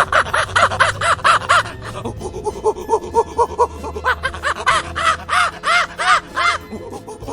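Chimpanzee calling: a rapid run of hoots, about five a second, climbing in pitch, that stops about a second and a half in, then a second climbing run starting about four seconds in.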